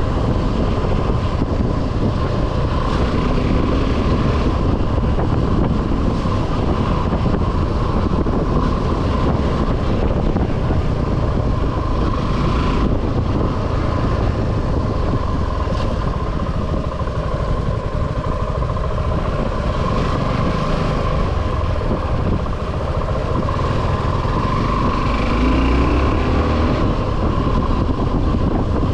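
Suzuki V-Strom 250 SX's single-cylinder engine running under way, mixed with steady wind rush on the camera microphone. The engine note rises briefly near the end.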